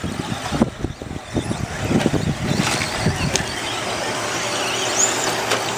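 Several electric 1/10-scale RC stadium trucks running around a dirt track, with faint brief motor whines over a steady noisy hum. Irregular low thumps come in the first three seconds.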